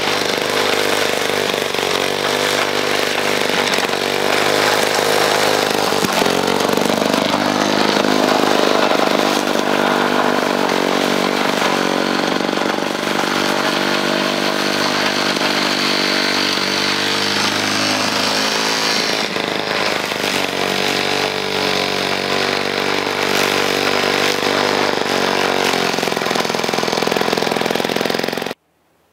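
1955 Sears Craftsman rotary lawnmower's 1.5 hp two-cycle Power Products engine running under load as it cuts thick, overgrown grass, its speed sagging and picking up again a few times. The sound cuts off abruptly near the end.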